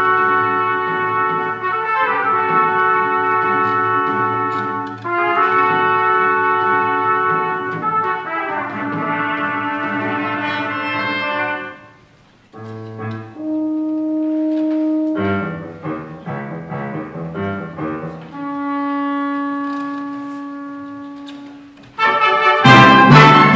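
Symphony orchestra playing: long held chords, a brief near-break about halfway, then sparser sustained notes and short figures, and a loud full-orchestra entry near the end.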